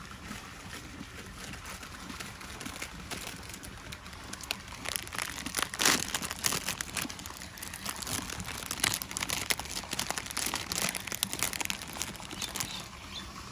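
Foil chip packet crinkling and rustling as it is handled, a run of sharp crackles that is loudest about six seconds in.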